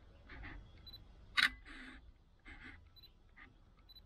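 A single-lens reflex camera's shutter firing once about a second and a half in: a sharp click with a short, softer sound right after it. Fainter short scuffs come and go around it.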